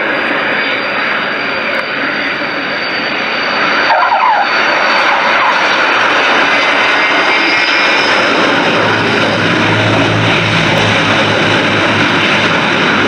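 Transall C-160's two Rolls-Royce Tyne turboprop engines and propellers running loud, first as the aircraft passes low over the runway, then as it rolls along it. A steady high whine sits above the propeller noise, and the sound gets louder about four seconds in.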